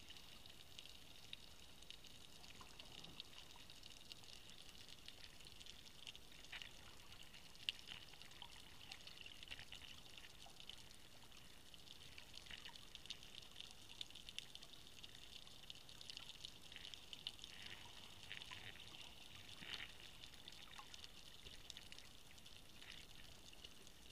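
Faint underwater ambience: a steady hiss full of fine crackling clicks, with a few louder single clicks scattered through.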